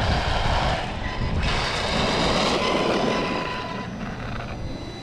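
Losi Lasernut U4 1/10 brushless RC rock racer running over rough ground, a faint motor whine over tyre and drivetrain noise. Its rear differential has failed, which the owner finds is locking up. The noise is loudest for the first three seconds, then fades as the car slows.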